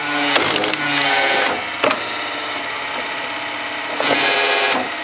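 Homemade firewood processing machine running steadily while a log is worked through it. There are two louder stretches of wood being processed and a couple of sharp cracks of wood.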